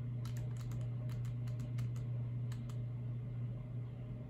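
Computer keyboard keys being pressed in a quick run of about a dozen light clicks over two seconds, stepping a cursor through a menu. A steady low hum runs underneath.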